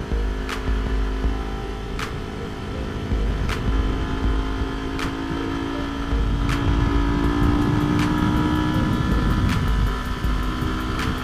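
Motorcycle engine running under way, its note rising slowly for several seconds and dropping back near the end, with wind rumbling on the camera microphone. A faint click repeats about every second and a half.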